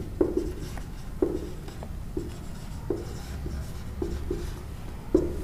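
Felt-tip marker writing on a whiteboard: a string of about ten short strokes, roughly two a second, as a word heading is written out.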